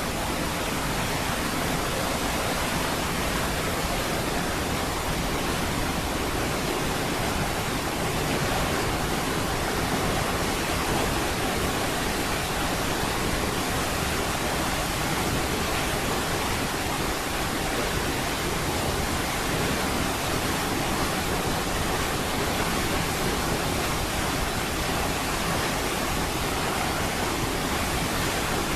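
Niagara Falls pouring: a steady, unbroken rush of falling water with no change in level.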